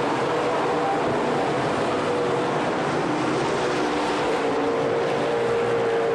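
Engines of a pack of Pro Stock dirt-track race cars running at speed: a steady, loud drone with several engine tones drifting slightly in pitch.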